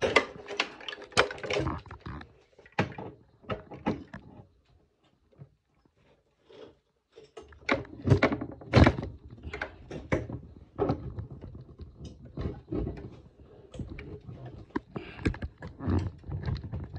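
Irregular knocks and clunks from a metal support pole and its bracket, parts of a Halloween animatronic, being handled and fitted together. They go quiet for a couple of seconds about five seconds in.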